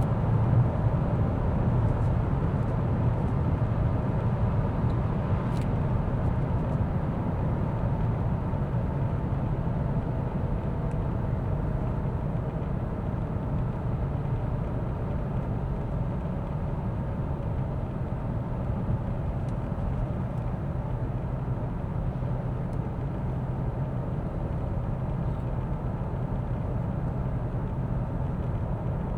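Mercedes-Benz S 450d with a 3.0-litre inline-six turbo diesel, driving steadily: a continuous low rumble of road and tyre noise with the engine underneath, growing slightly quieter over the first half.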